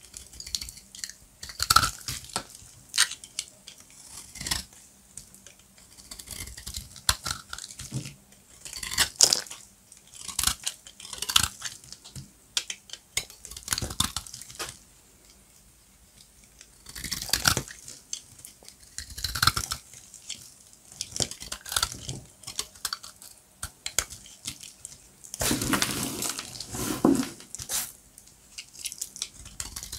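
Dry, crunchy bar soap being cut and crumbled, giving bursts of crackling crunches with short pauses between them. There is a quiet stretch about halfway through and a longer, dense crunch near the end.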